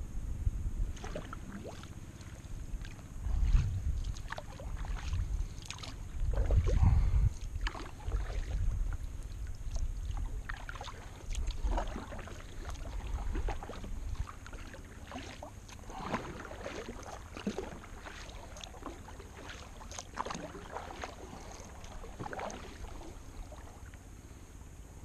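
Kayak paddle strokes in calm river water: the blades dipping and splashing at an uneven pace, over a low rumble that is loudest in the first third.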